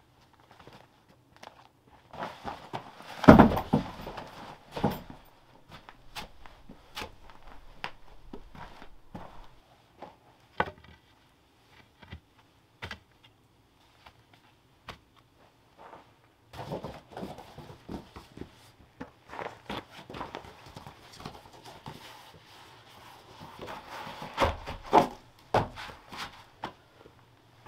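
Footsteps and the irregular knocks and rustles of someone moving about and handling camping gear, with a cluster of loud thumps about three seconds in and again near the end.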